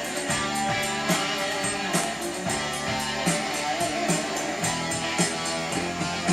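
A vinyl record playing on a Technics SL-B3 belt-drive turntable: rock-style music with guitar and a steady drum beat.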